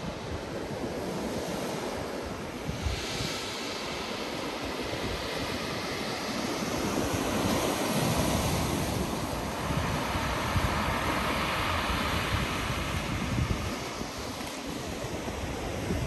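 Black Sea surf breaking and washing over shoreline rocks, a continuous rush that swells louder in the middle, with wind buffeting the microphone.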